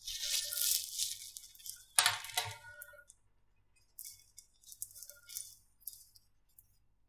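Slime being squished and pressed, giving dense crackling clicks, then a louder sharp clack about two seconds in, and scattered crackles a little later.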